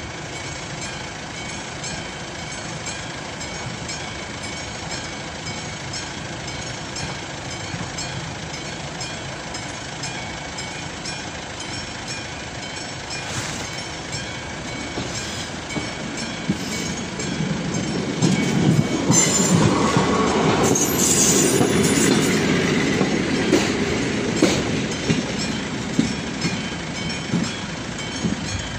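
Level-crossing warning bell of AŽD 71 signals ringing steadily while the crossing is closed. About halfway through, a Czech class 810-type diesel railbus approaches and runs over the crossing. Its rumble grows to loudest in the last third, with a brief high wheel squeal, then eases off near the end.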